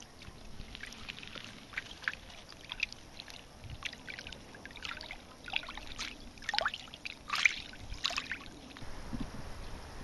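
Small waves lapping and splashing against the pebbles at the water's edge, a string of irregular little splashes, a few louder ones in the second half.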